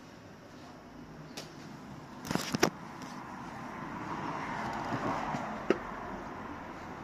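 A car passing on the street, its tyre and engine noise swelling in the second half and easing toward the end. Before it, a quick cluster of clicks and knocks about two and a half seconds in.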